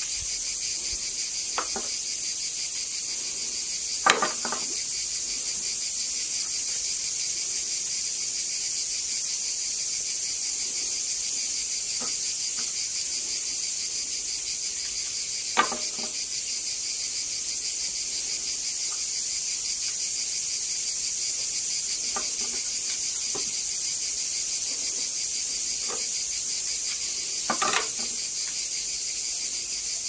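Steady, continuous chorus of crickets chirping, high-pitched, with a few short sharp knocks and clicks from food preparation; the three loudest come about 4, 16 and 28 seconds in.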